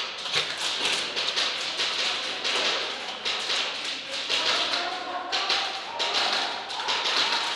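Airsoft guns firing and BBs striking hard surfaces: a dense, irregular run of sharp clicks and taps that does not let up.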